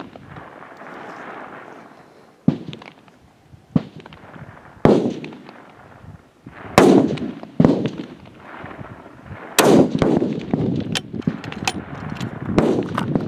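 Rifle shots from a firing line, about ten irregularly spaced cracks, each trailing off in an echo.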